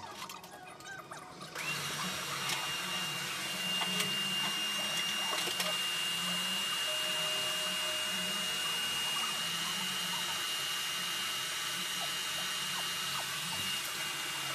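A motor-driven appliance switches on suddenly about a second and a half in and runs steadily, a rushing hum with a thin high whine. Faint squeaky chirps are heard just before it starts.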